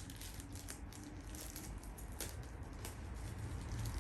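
Unboxing handling noise: scattered soft clicks and rustles of packaging and plastic parts being handled.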